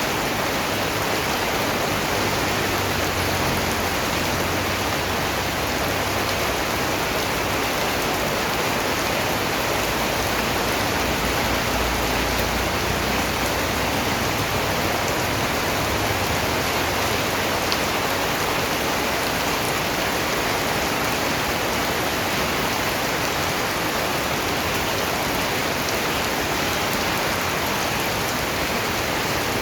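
Steady rain falling, a continuous even hiss of raindrops on surfaces with no letup.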